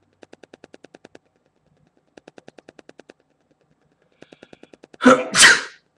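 A man sneezes loudly near the end, in two quick loud bursts; it is one sneeze in a fit of repeated sneezing. Before it come three short runs of quick, even ticks, about ten a second.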